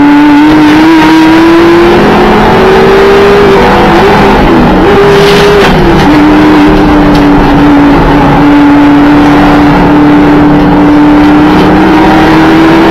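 2012 Audi TT RS's turbocharged five-cylinder engine under race load, loud and pulling up through the revs. Its note dips and wavers about four to five seconds in, drops sharply soon after, then holds steady and slowly climbs again.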